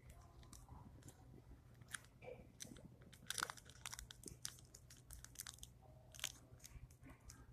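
Faint crinkling and crackling of small twisted paper candy wrappers being handled and unwrapped, in scattered short bursts with a busier patch about halfway through.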